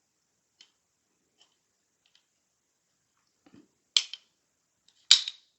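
Metal clicks of a newly installed Geissele SD-E trigger and hammer being worked in an AR lower during a function check: a few faint ticks, then two loud sharp snaps about a second apart near the end.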